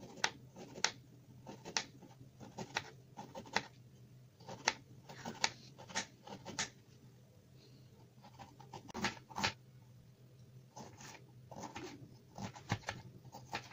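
Knife chopping peeled ginger root into small pieces on a cutting board: a string of sharp, irregular cuts, a short pause about seven seconds in, then more cuts.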